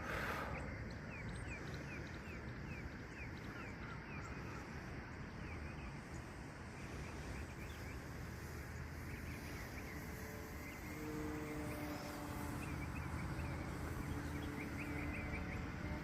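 Outdoor field ambience: a steady low wind rumble with many short, high chirps scattered throughout. About eleven seconds in, a faint steady hum comes in for a couple of seconds.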